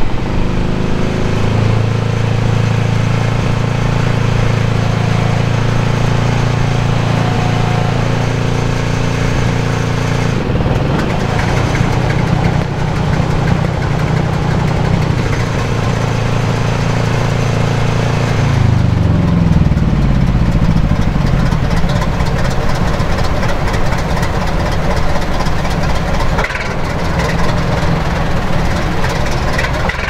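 Heavy engine running steadily at a constant speed, its note changing about ten seconds in, then the revs falling away about eighteen seconds in before it settles into a lower run. A single knock sounds near the end.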